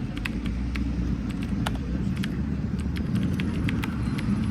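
City street ambience: a steady low rumble of road traffic, with scattered short sharp clicks throughout.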